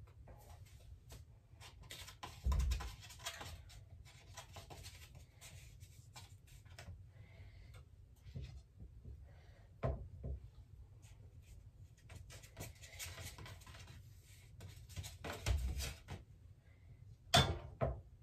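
A metal fork scraping and pressing on empanada dough against a paper plate as the edges are crimped shut, in scratchy spells, with a few dull knocks and sharper clicks as the plate and pan are handled.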